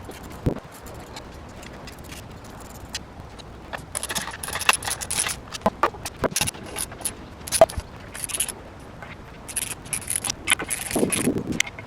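Metal hand tools and engine parts clinking and scraping, with scattered sharp clicks and two busier bursts of jingling metal, the second ending in a short scrape.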